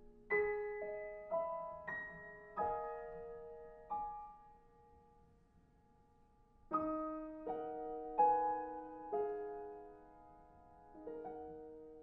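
Solo piano music: slow phrases of struck chords and single notes left to ring. A first phrase dies away to a lull near the middle, then a second phrase begins and fades near the end.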